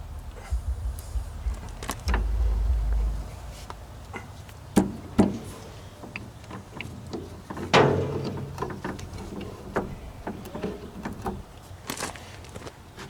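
Metal clanks and knocks from handling tools and parts while refitting a skid steer hydraulic cylinder: scattered light knocks, two sharp ones about five seconds in, and one loud ringing strike about eight seconds in. A low rumble lasts about a second near the start.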